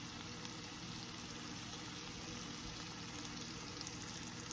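Sliced sausage frying in a skillet: a faint, steady sizzle with light crackling.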